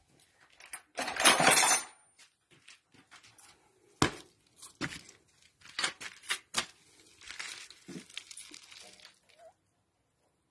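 Hands and tools working on a Lister SR3 diesel's fuel injection pump linkage, with the engine not running. A loud crackling rustle about a second in, then scattered sharp metal clicks and knocks, and a softer rustling near the end.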